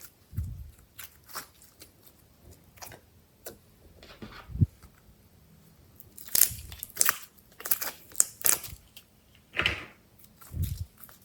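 Glossy slime being squished and pressed by hand: irregular sticky clicks and pops, with a few low soft thumps. The popping is busiest in the second half.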